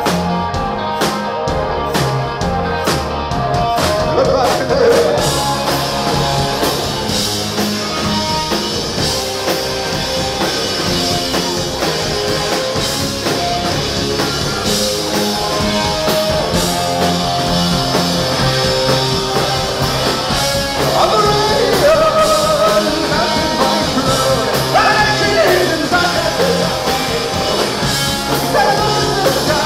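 Rock band playing live and loud: electric guitars, bass and a steady drum beat, with a lead vocal singing over it in places.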